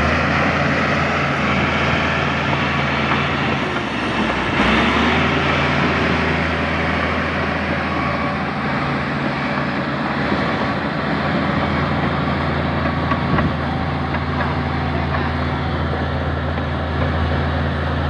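LiuGong B160C crawler bulldozer's diesel engine running steadily under load as it pushes soil with its blade, with a brief change in the engine note about four to five seconds in.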